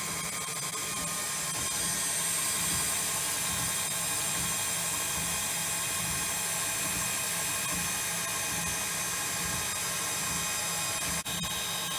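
Electric mixer running steadily, its whisk beating pancake batter in a bowl.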